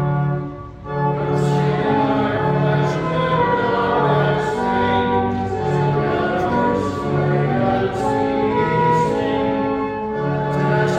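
A congregation singing a hymn with instrumental accompaniment, in long held notes. There is a short break between lines about a second in.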